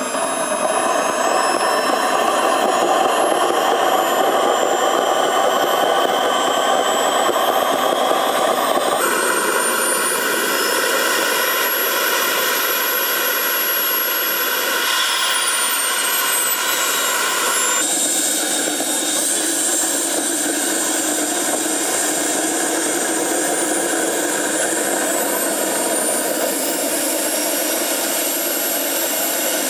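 The twin model jet turbines of a large Short Sherpa SB-4 model running on the ground: a steady jet rush with a high turbine whine that glides up and down in pitch. The sound changes abruptly twice.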